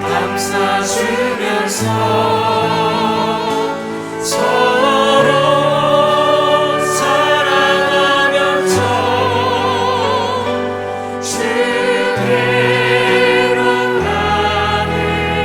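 Choir singing a slow Korean gospel hymn with vibrato over sustained, accompanying bass notes that change every few seconds.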